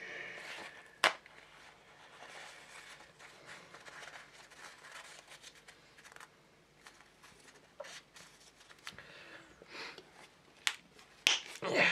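Toilet paper being handled, folded and torn by hand: soft papery rustling, with a sharp tap about a second in and a few more clicks near the end.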